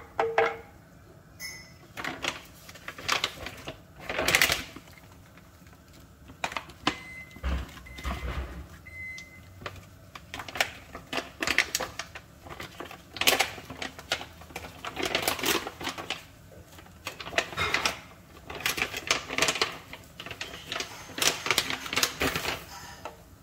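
Irregular clicks and scrapes of a wooden spoon working a metal mesh range-hood grease filter in a metal roasting pan of boiling baking-soda water, loosening the grease.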